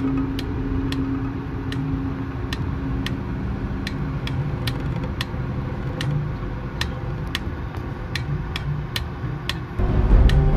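Car engine and road noise heard from inside the cabin as the car rolls slowly, with a regular tick about twice a second. The low rumble steps up louder near the end.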